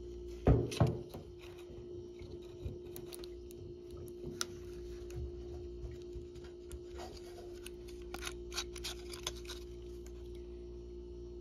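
Handling noise from a brass pressure relief valve and a tube of pipe joint compound as the compound is squeezed onto the valve's threads: a sharp knock about half a second in, then scattered small clicks and taps, with a cluster of them near the end. A steady low hum runs underneath.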